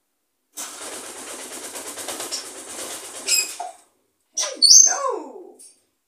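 African grey parrot calling: a rasping hiss lasting about three seconds, a short high squeak, then two loud whistled calls that slide down in pitch.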